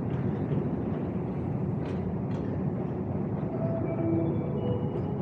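Steady low rumble of a long metro escalator running, with a couple of light clicks about two seconds in.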